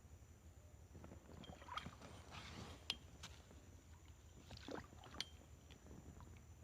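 A kayak paddle dipping into the water: faint splashes with light knocks, in two strokes about two and a half seconds apart.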